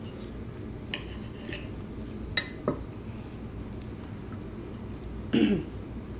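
Utensils clicking and clinking against a plate while eating: a few separate light clicks, then a louder clatter near the end.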